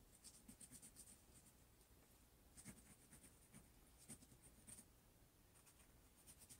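Faint scratching of a Sharpie marker's felt tip drawing short freehand strokes over dried acrylic paint on a canvas apron, in quick runs of little strokes.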